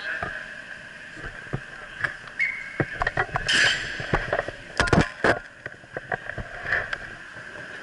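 Irregular knocks and clatter of hockey sticks, skates and gear banging against the rink's dasher boards, densest and loudest in the middle, over a steady high background hum.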